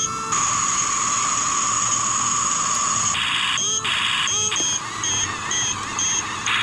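Electronic whine and hiss from an RC bulldozer, holding two steady high tones. About three seconds in it breaks into a run of short, repeated beeps.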